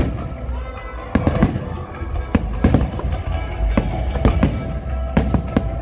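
Fireworks display: aerial shells bursting in an irregular series of sharp bangs, about a dozen in quick succession, over music.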